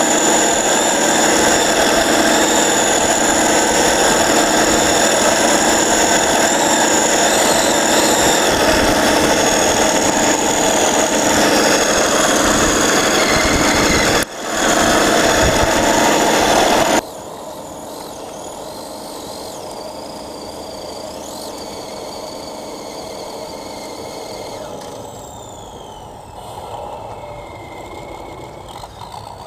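Home-made steel RC logging truck running, a loud steady mechanical drone with a high whine. It cuts out briefly about halfway, comes back, then drops sharply to a much quieter running sound with a few short rising whines near the end.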